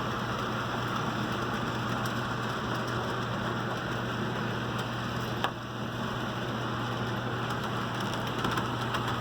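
HO scale model train running along its track: a steady rolling whir over a constant low hum, with one sharp click about five and a half seconds in.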